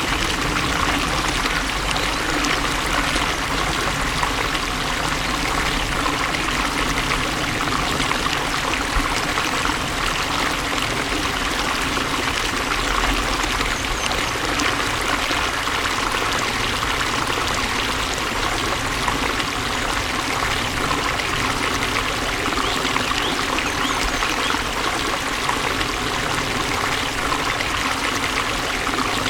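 Water flowing steadily and evenly, with no breaks or changes.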